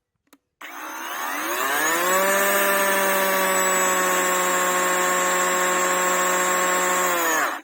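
Parkside 40V brushless cordless chainsaw run with no load at speed level 2: the motor and chain spin up with a rising whine over about a second and a half, hold a steady high whine, then cut off suddenly near the end.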